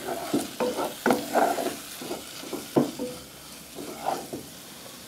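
Wooden spatula scraping and stirring spice paste, lemongrass and leaves as they fry in a little oil in a non-stick pot, over a low sizzle. The scraping strokes come irregularly and stop about four and a half seconds in, leaving only the sizzle.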